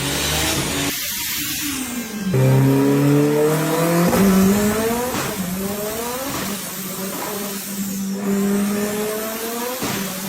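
Turbocharged car engine and exhaust running hard, with the engine note changing pitch in several steps and a few sudden breaks.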